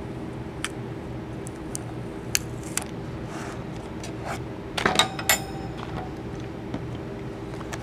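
Hands handling a glass plate and plastic tape: light clicks and taps, then a cluster of knocks about five seconds in, one with a brief glassy ring, as the glass plate is set aside. A steady low hum runs underneath.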